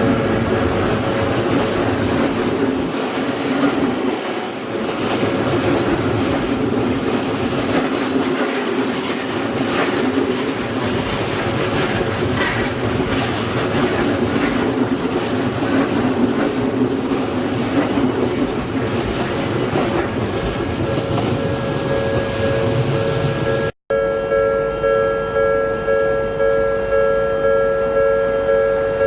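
An Odakyu Line train running past a level crossing, its wheels rattling over the rails, with the crossing's warning bell ringing underneath. After a brief dropout about 24 seconds in, the crossing bell rings on its own, a steady ding repeating about one and a half times a second.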